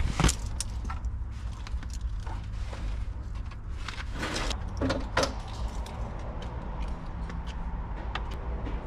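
Clicks, knocks and rattles of a removed plastic center console and its dangling wiring harness being handled and set down, over a steady low rumble. The loudest knocks come near the start and about five seconds in.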